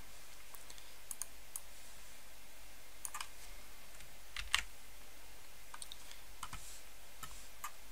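Faint, scattered clicks of computer keys at a desk, about ten in all, one louder click about four and a half seconds in, over a steady low hum.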